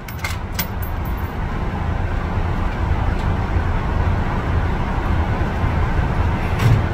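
Motorized target carrier running along its track, its motor noise growing steadily louder over several seconds, then stopping with a loud clunk at the end.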